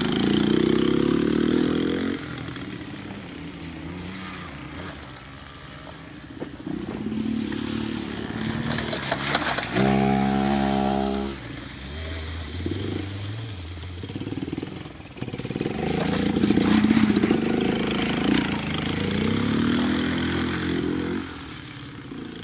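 Small youth-size ATV (quad) engine revving up and easing off as the quad rides along a wooded trail, its sound swelling and fading as it comes near and goes away. It holds one steady high rev for about a second halfway through.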